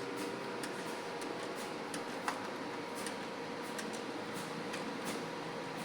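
Computer keyboard keys clicking under steady typing, irregular keystrokes two or three a second, with one sharper click about two seconds in, over a steady hum of room equipment.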